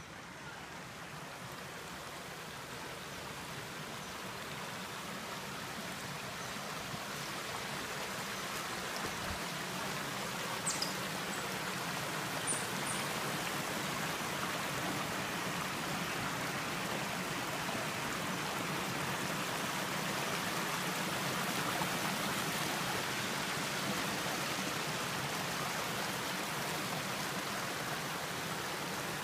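Small stream rushing and splashing over rocks, a steady water noise that grows louder over the first twenty seconds or so and then holds. A few faint short high clicks come about ten to thirteen seconds in.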